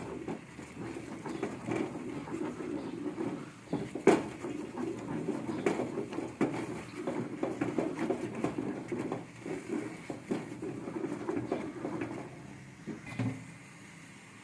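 A spoon stirring thickening maize-flour porridge (ugali) in a pot: a continuous squelching, scraping sound with sharp knocks of the spoon against the pot, the loudest about four seconds in. The stirring stops near the end.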